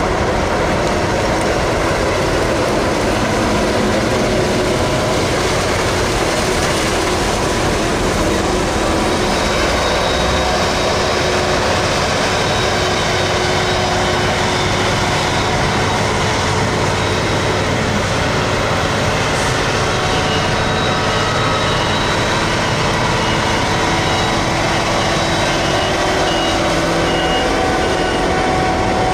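Claas Jaguar 990 forage harvester chopping maize, its engine and chopping gear running at a steady heavy load, with tractors working alongside. A high repeated beep sounds for several seconds in the second half.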